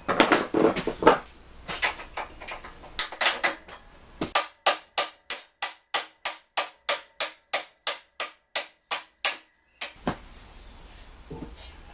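Metal parts and tools clattering and knocking while a moped fuel tank is fitted, then a steady run of about twenty sharp clicks, roughly four a second.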